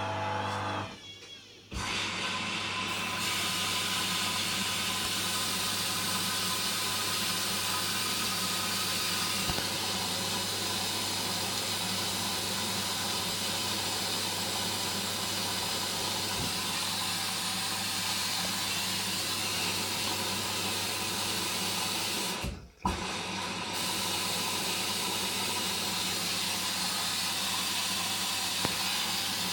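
Hoover Dynamic washing machine: the motor hum of the distribution spin stops about a second in. Then a steady rush of water starts as the inlet valve fills the drum for the first rinse. The water cuts out briefly about 23 seconds in, then carries on.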